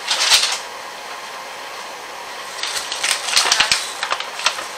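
A brown paper bag rustling and crinkling as it is handled: one brief rustle at the start and a run of crackles in the second half, over a steady background hum.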